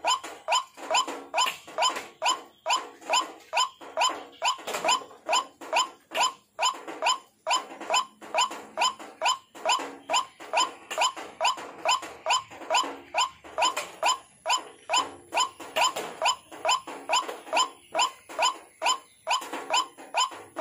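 White-breasted waterhen (ruak-ruak) lure call: short, loud notes repeated evenly, about two a second, without a break.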